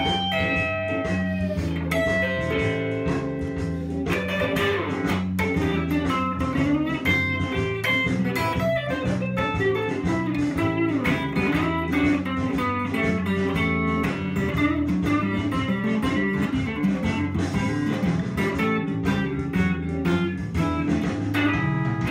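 Electric guitar, a Fender, playing blues lead lines: picked single notes and short phrases over a steady low line.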